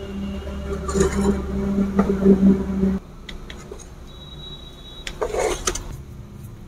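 Steel ladle scraping and clinking against a steel kadhai and plate as fish curry is served, over a steady low hum that cuts off about three seconds in. A short scraping rattle comes a little after five seconds.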